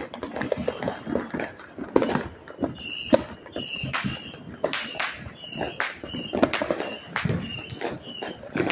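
Consumer fireworks and firecrackers going off, a rapid irregular string of sharp bangs and pops with echoing tails. From about three seconds in, a short high-pitched chirp repeats about twice a second among the bangs.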